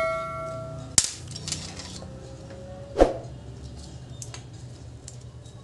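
A metallic ring dying away, then two sharp clicks about two seconds apart, the second louder, from small tools and wires handled on a workbench during wiring work; a low steady hum runs underneath.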